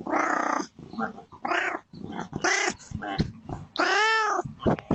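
A domestic cat meowing over and over, a string of loud calls with the longest near the end rising and then falling in pitch: a cat asking to be let in.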